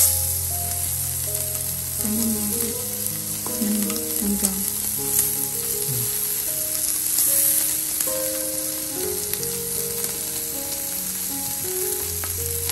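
Beef, pork and shrimp sizzling steadily on a domed tabletop grill pan over a portable gas stove, with a few light clicks as chopsticks turn the meat. Soft background music with held notes plays underneath.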